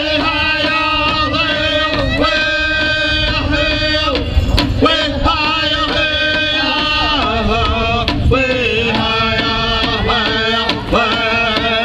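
Powwow drum group singing: several voices singing held, wavering notes together over beats on a large drum.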